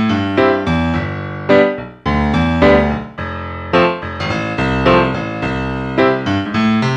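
Background music: a keyboard melody of struck, piano-like notes, each one fading away after it sounds.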